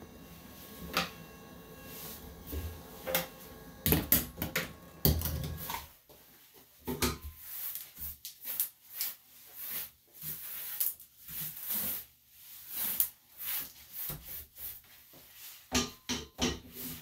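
Grooming tools clattering and knocking as they are lifted off the grooming table. From about six seconds in, a run of short, uneven brushing strokes as clipped dog hair is wiped off the tabletop.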